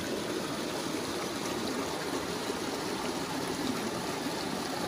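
Shallow river water rushing steadily over rocks in a small cascade into a pool.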